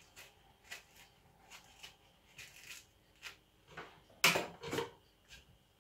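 Faint, scattered scrapes and rustles of a kitchen knife cutting the peel off a grapefruit, followed a little over four seconds in by two louder rustling knocks.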